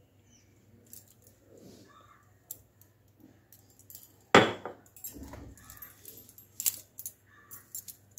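Kitchen utensils clinking as a metal spoon and small flavouring bottles are handled over a cooking pot. There are scattered light taps and clicks, one louder knock about four seconds in, and a run of quick clinks near the end.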